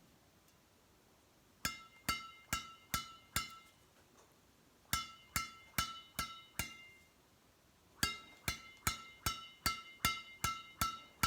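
String bed of a Yonex Astrox 88D badminton racket, strung with Yonex BG80 Power at a very high 30 lbs, struck in three runs of quick taps (five, five, then about nine), each tap giving a sharp, high ringing ping that dies away quickly; the high, clean ping is the sign of the very tight string tension.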